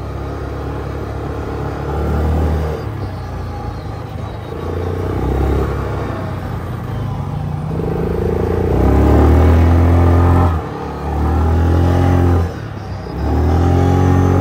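ATV engine running under throttle, revving up and easing off repeatedly; its pitch climbs as the quad pulls up a grassy bank, followed by three loud throttle bursts each cut off sharply in the second half.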